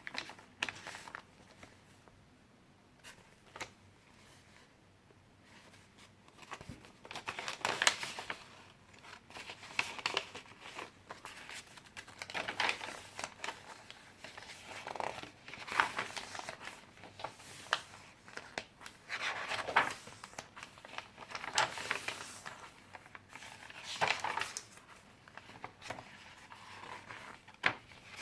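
Paper pages of a handmade junk journal being turned and handled: soft rustles and swishes of paper every second or two, with only a few light clicks in the first several seconds.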